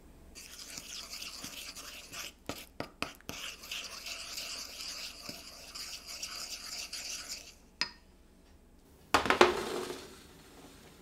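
A wooden utensil stirring and scraping olive oil and curry powder around a small pan, a continuous scratchy rubbing with a few sharp taps against the pan. About nine seconds in, a metal baking tray is set down on a wooden table with a loud clatter that fades over about a second.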